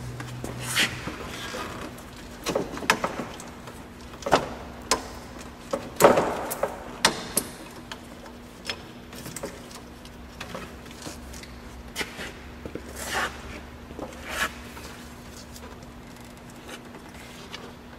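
Hands and tools working in an engine bay while fitting a serpentine belt over the accessory pulleys: scattered clicks, knocks and brief rubbing, loudest about six seconds in, over a faint steady hum.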